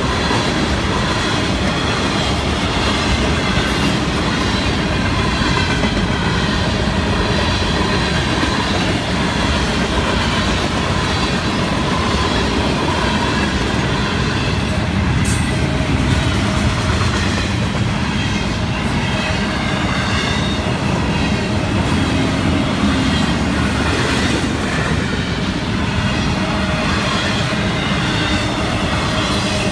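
Freight cars of a Florida East Coast Railway train rolling steadily past: tank cars, boxcars, then double-stack container and trailer well cars. Their wheels rumble on the rail, with clickety-clack over rail joints and a few sharp clacks.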